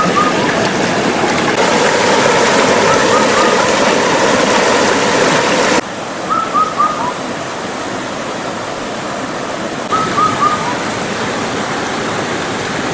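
Mountain stream water rushing over rocks, a steady dense rush that drops suddenly in level about six seconds in. Short high chirps in groups of three recur every few seconds above it.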